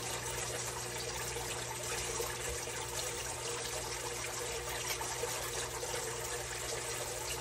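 Steady hiss with a faint low hum underneath: kitchen background noise, with no distinct knocks or handling sounds standing out.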